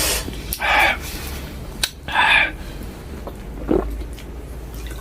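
Someone slurping and gulping cold water: two short noisy slurps, about a second in and again about two seconds in, with a few small clicks around them.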